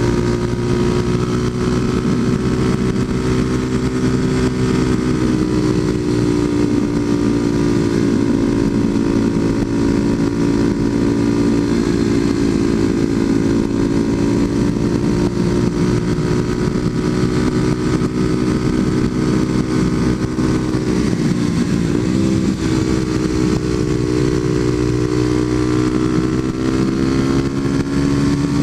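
Kawasaki KLX250SF's single-cylinder four-stroke engine, breathing through a Muzzy aftermarket exhaust, running steadily at cruising speed, with a brief dip and rise in pitch about three quarters of the way through.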